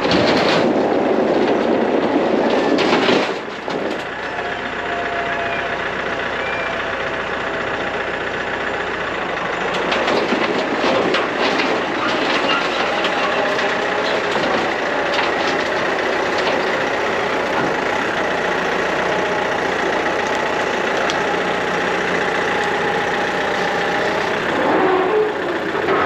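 Loader tractor's diesel engine running steadily as it drives up the ramps onto a flatbed trailer, with a few knocks about three seconds in and again around ten to twelve seconds in.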